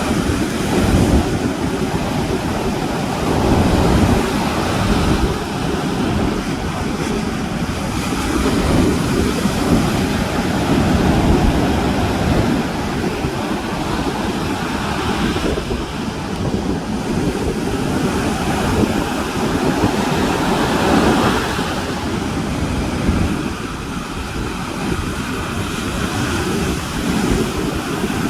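Sea waves breaking and washing on the shore, swelling and easing every few seconds, with wind buffeting the microphone.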